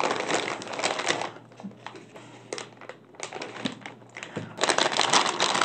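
Metallized anti-static bag crinkling as the graphics card inside it is handled and lifted out of its box. Crinkling for about the first second, a quieter stretch with a few light clicks, then crinkling again from about four and a half seconds in.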